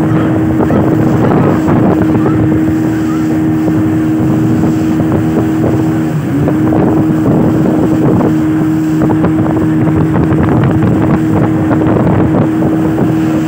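Small motorboat's engine running with a steady drone as the boat cruises, with wind and water rushing past. The engine note dips briefly about six seconds in.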